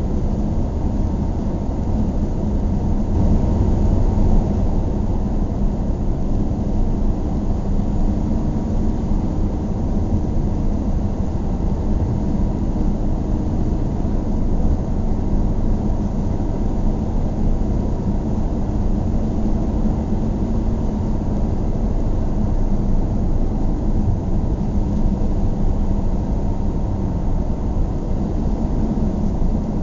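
A car driving at steady speed: engine and tyre noise make an unbroken low rumble with a faint steady hum.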